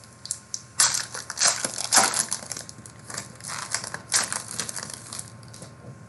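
Crinkly plastic-foil trading-card pack wrapper being torn open and handled, in irregular crackling bursts, strongest about one to two seconds in and again around four seconds in.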